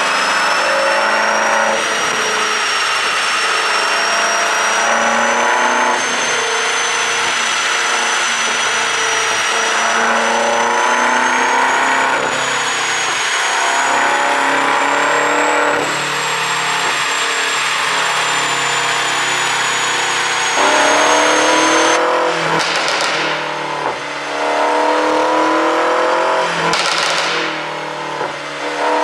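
BMW M8 Gran Coupe Competition's twin-turbo 4.4-litre V8 running under load, its pitch rising and falling as it accelerates and eases off, on an ECU tune meant to make the exhaust pop. Two short sharp cracks come in the last several seconds.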